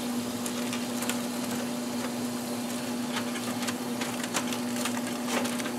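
A steady low hum with light crinkling and crackling of aluminium foil as it is pulled back from a pan.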